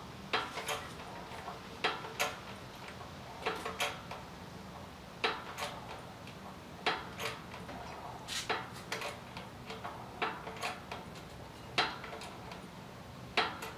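20-ton hydraulic bottle jack on a shop press being pumped by hand, its handle giving a short cluster of metal clicks on each stroke, about one stroke every second and a half, as it presses a U-joint bearing cap into a driveshaft yoke.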